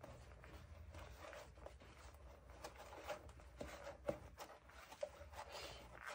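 Quiet, with a low steady hum and faint, scattered small clicks and rustles.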